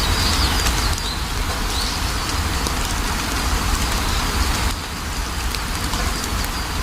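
Steady rain falling with a deep low rumble and scattered drop clicks. A few short, high bird chirps come within about the first second.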